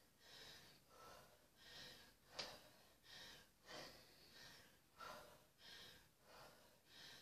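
Faint, fast, heavy breathing in a steady rhythm of quick breaths in and out, the panting of someone exerting themselves through a set of press-ups. One sharp click about two and a half seconds in.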